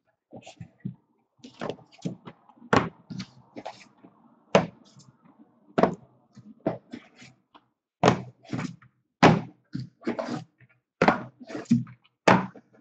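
Shrink-wrapped cardboard hobby boxes of baseball cards being set down one after another onto a table and onto each other, a series of knocks about one a second, some in quick pairs.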